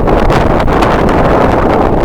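Strong wind blowing across the camera microphone: a loud, continuous rumbling buffet that flutters in strength.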